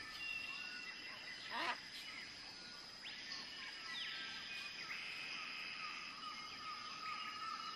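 Outdoor woodland ambience: birds chirping and calling over a steady high-pitched hum, with one quick rising sweep about a second and a half in.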